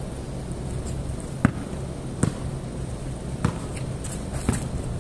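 A basketball bouncing on a concrete court: four separate thuds at uneven intervals, over a steady low hum.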